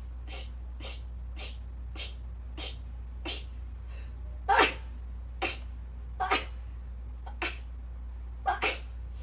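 A person sneezing in rapid fire: about a dozen short sneezes in a row, roughly half a second apart, the loudest one about halfway through. It is a sneezing fit that she puts down to really bad allergies.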